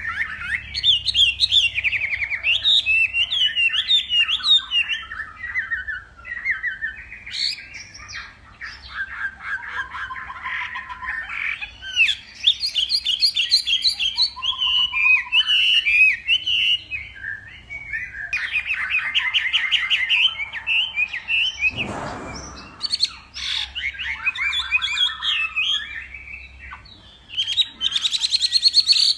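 A Chinese hwamei sings a long, unbroken run of rich whistled phrases, rapid trills and sliding notes. About two-thirds of the way through there is a brief dull bump.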